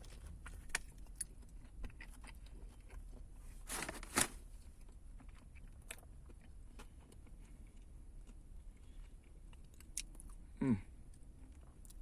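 A person chewing a bite of a fried chicken sandwich: soft, wet chewing with small crunchy clicks. There is a louder crunch about four seconds in, and a short falling hum near the end.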